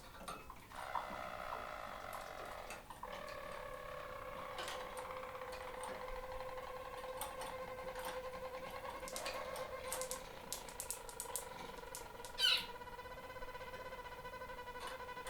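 Harzer Roller canary singing its low, rolling song in long, sustained tours, with a few faint clicks. A single sharp, louder chirp cuts in about twelve seconds in.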